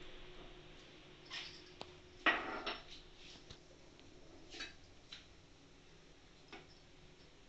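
Scattered clinks and knocks of a small stainless-steel mortar and pestle being handled and set down, the loudest a short cluster of knocks about two seconds in, with a few lighter taps after it.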